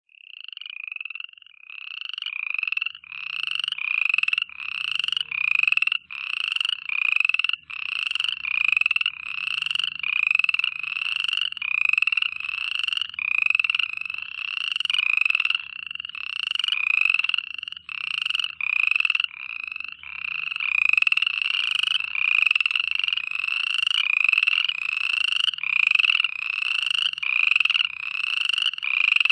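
A chorus of frogs croaking: short, slightly rising calls repeating about one and a half times a second, overlapping one another.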